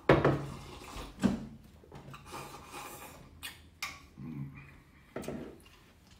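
Tableware knocking during a meal: a handful of sharp clicks and knocks of bowls and chopsticks against a table and dishes, the loudest at the start and about a second in.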